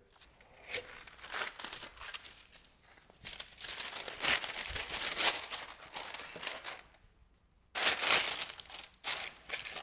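Baking parchment crinkling and rustling in irregular bursts as it is pressed and folded into a metal baking tin, with a short break about seven seconds in.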